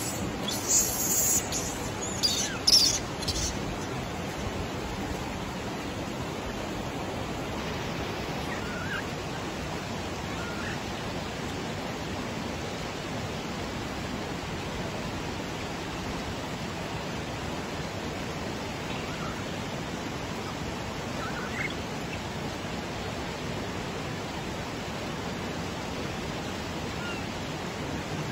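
Steady rush of flowing water from the hot-spring valley. A few louder crackling bursts come in the first three seconds, and a few faint short chirps follow later.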